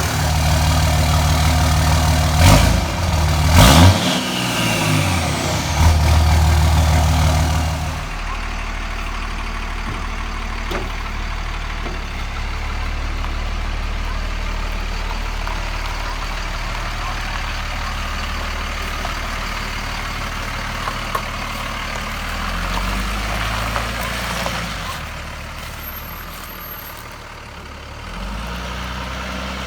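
A 2003 Dodge Ram 3500's 5.9 L Cummins turbo-diesel running through a new straight-piped 5-inch exhaust. It is revved a few times in the first several seconds, then settles to a steady idle.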